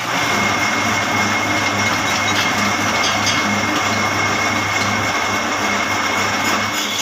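Metal lathe running with its large four-jaw chuck spinning a steel bevel gear: a steady machine hum with a thin, constant high whine over it.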